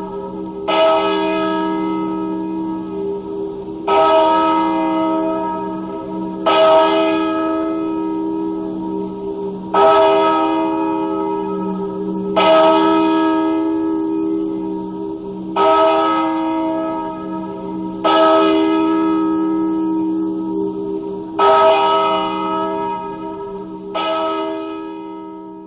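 Church bell struck nine times, about every three seconds, each strike ringing on and dying away under the next.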